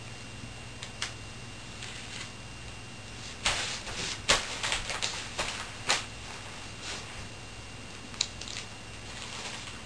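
Glossy magazine pages rustling and crinkling as a toddler handles and turns them: a few light taps and crackles, then a flurry of crisp rustles a few seconds in, with a few more near the end.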